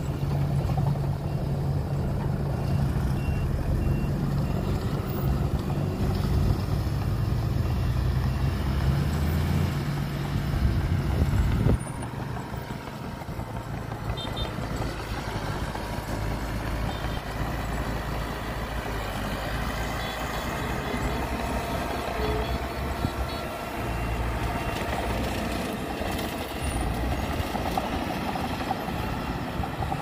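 Diesel engines of a dump truck and small crawler bulldozers running. The engine sound is heavier for the first twelve seconds, then drops suddenly. A reversing alarm beeps faintly at times.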